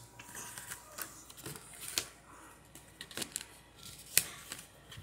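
Handling of Pokémon trading cards and a paper card pack: scattered soft rustles and a few sharp clicks, the clearest about two seconds in and again about four seconds in.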